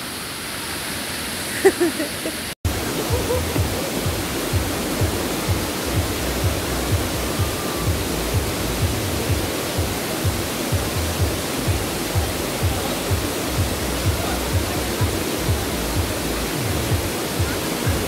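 Steady rush of cascading waterfall water. After a cut about two and a half seconds in, background music with a steady beat plays over it.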